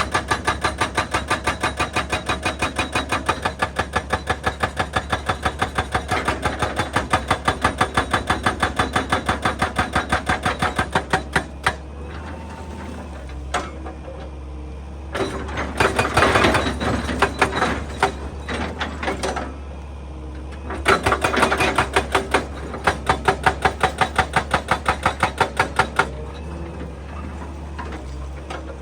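Excavator-mounted hydraulic breaker hammering rock in a fast, even run of blows for about eleven seconds, then stopping. Two heavier noisy bursts of rock breaking follow, then another short run of blows.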